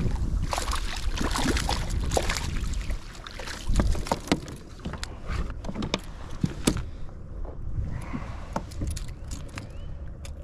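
Irregular clicks, knocks and small metallic rattles of fishing gear being handled on a kayak. Wind buffets the microphone for the first few seconds.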